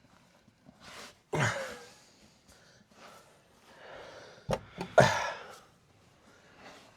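A few knocks and clunks as a heavy truck wheel and tire is worked onto the hub, one heavier clunk early on, then two sharp knocks about half a second apart near the middle, the second the loudest.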